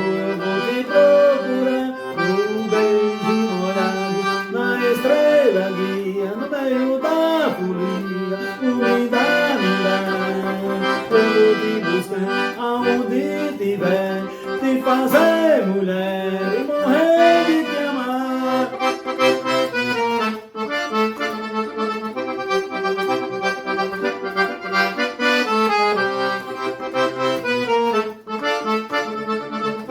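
Accordion playing an instrumental melody with quick moving notes over held chords and bass notes, with no singing.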